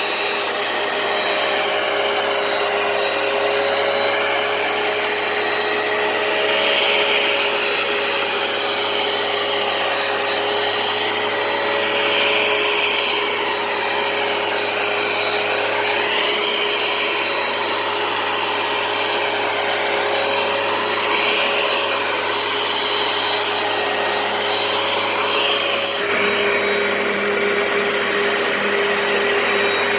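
Hoover PowerDash carpet cleaner running steadily: a motor whine over suction hiss that swells and fades slightly, with a small change in tone near the end.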